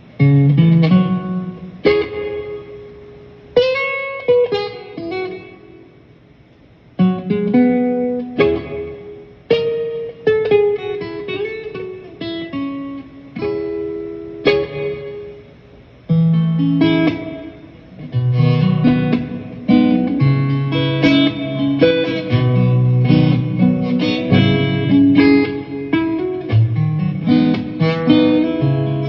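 Guitar music: plucked chords that ring out and fade, with short pauses between phrases, then steadier, busier playing from about halfway through.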